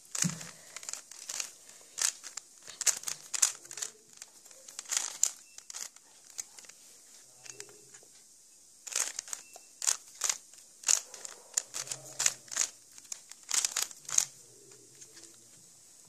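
Plastic 3x3 Rubik's cube being turned quickly by hand: rapid clicking and clacking as its layers twist, in two flurries with a pause of about three seconds between them.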